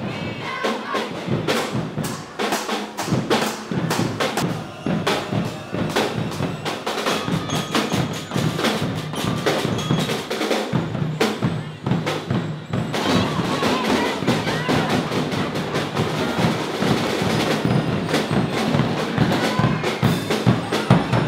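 Protest noise barrage: a school drum corps beating snare and bass drums in fast, continuous strokes and rolls, with students shouting and cheering over it.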